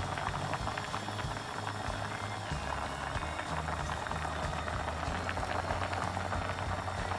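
Salted water with spaghetti in it at a rolling boil in a cooking pot, bubbling and crackling steadily.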